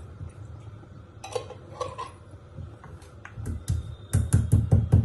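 A few light clicks, then from about three seconds in a fast, even pounding of about six strokes a second: cloves and black peppercorns being crushed with a pestle in a mortar.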